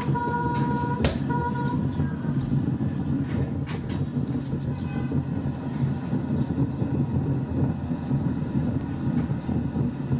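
Steady low rumble of a car engine and road noise, with a car horn held at the start and sounded again briefly just after.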